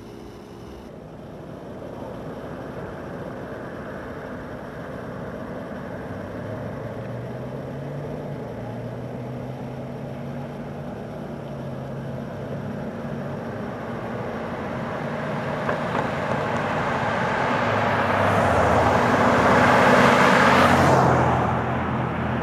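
Road traffic: a motor vehicle's engine hum and tyre noise slowly build as it approaches, peak as it passes close by near the end, then drop away.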